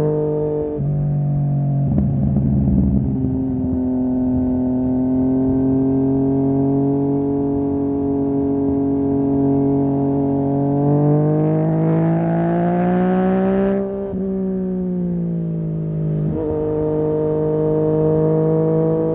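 2020 Yamaha MT-09's three-cylinder engine through a Barker full-system exhaust, heard onboard under way: it holds steady revs for long stretches, climbs in pitch for a few seconds past the middle, and drops suddenly several times as the revs fall.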